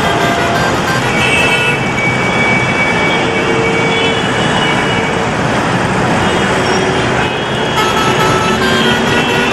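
Busy road traffic: a steady, loud din of vehicles with short horn toots at different pitches scattered throughout.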